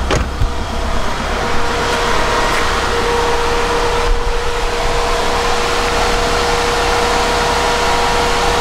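Turbocharged 4G63 inline-four of a Mitsubishi Lancer Evolution III idling steadily, with a steady whine over it from about a second in. A thump or two sounds right at the start.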